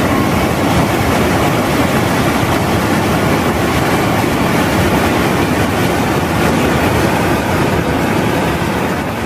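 Fast-flowing stream rushing over rocks: a loud, steady rush of whitewater.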